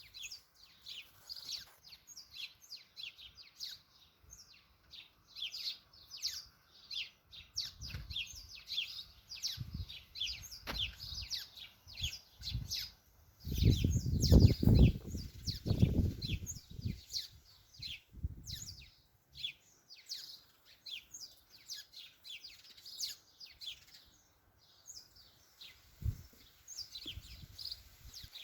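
Garden birds chirping and singing in a dense, continuous chorus, with wind gusting across the microphone in low rumbles; the strongest gust comes about halfway through and lasts about three seconds.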